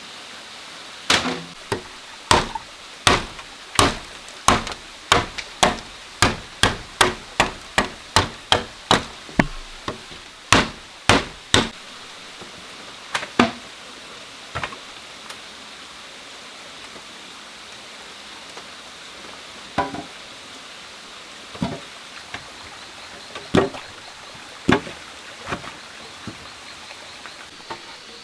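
Repeated sharp blows of a tool on wood, about one and a half a second for some ten seconds, then a few scattered strikes.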